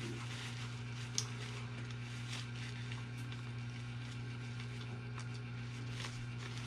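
Steady low electrical hum with faint sounds of two people chewing burgers and handling paper wrappers and napkins, and a couple of small clicks.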